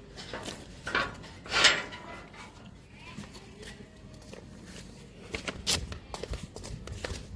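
Metal clanks and rattles of a steel bar gate's sliding bolt being drawn and the gate opened, with a brief vocal sound about a second and a half in. A further cluster of light knocks comes a little past halfway.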